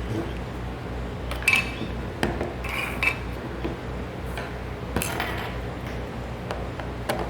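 Metal parts and tools clinking while a machine is taken apart: about half a dozen light, separate metallic clinks with a little ringing, over a steady low hum.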